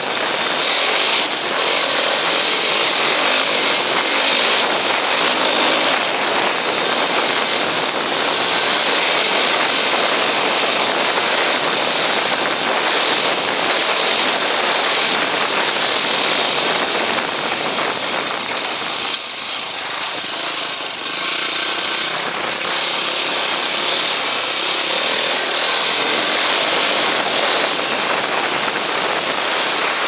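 Dirt bike engine running while riding along a trail, mixed with a steady rush of wind and road noise on the helmet-mounted camera. The sound drops briefly about two-thirds of the way through, then picks up again.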